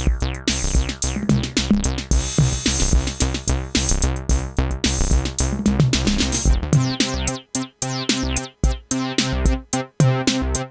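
Synthesizer bass line played over a drum-machine beat. About seven seconds in the deep low bass drops away, leaving a thinner, choppier pattern with short gaps.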